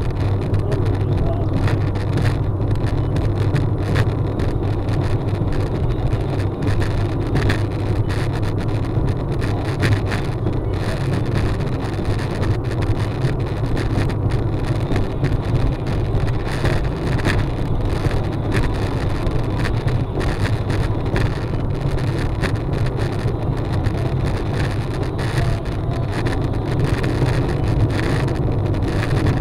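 Car driving at highway speed, heard through a dashcam: a steady low drone of road and engine noise, heavy with vibration, with frequent small rattles and knocks scattered through it.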